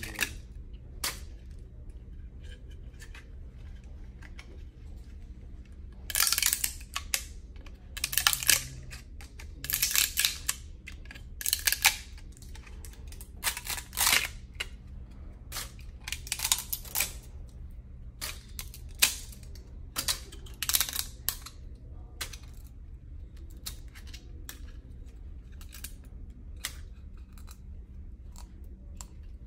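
Small cutters snipping and prying support material off an FDM 3D-printed plastic part: irregular sharp clicks and snaps of plastic breaking away, coming in clusters and thinning out over the last several seconds.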